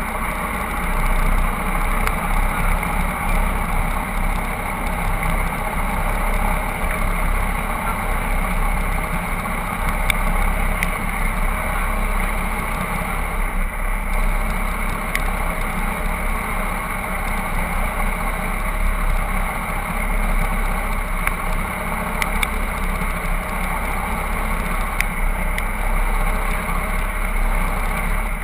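Twin Yanmar BY 260 hp diesel engines of a Stirling 34 race boat running steadily under way, heard on board together with the rush of water and wake.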